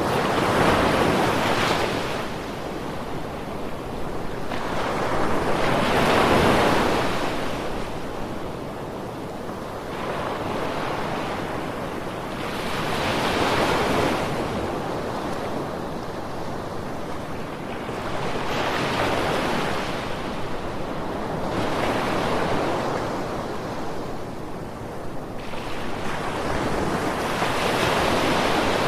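Ocean waves breaking and washing up on the shore in slow surges of rushing water, one every five to seven seconds.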